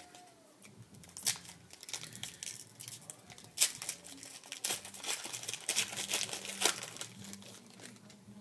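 Foil wrapper of a trading-card pack being torn open and crinkled, a dense run of sharp crackles with a few louder rips, easing off near the end.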